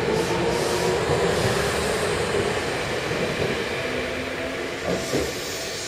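Seibu Shinjuku Line electric express train pulling away from the platform: the motor whine is still climbing in pitch at the start, then the cars run past with a steady rumble of wheels on rails that slowly fades.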